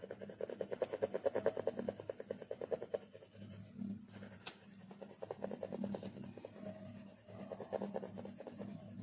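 Graphite pencil shading on sketchbook paper: quick back-and-forth scribbling strokes, strongest in the first few seconds and again near the end. A single sharp click sounds about halfway through.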